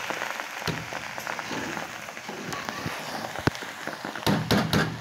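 A metal spoon scrapes and knocks against a metal pot as boiled rice is stirred into hot, sizzling sugar syrup with browned khoya. There is a steady crackle throughout, a sharp clack about three and a half seconds in, and a cluster of loud knocks near the end.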